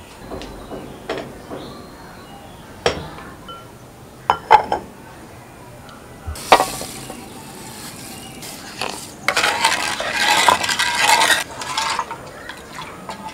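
Wooden spoon knocking against clay pots and a clay bowl, several separate knocks, then about two seconds of liquid splashing in a clay pot near the end, the loudest part.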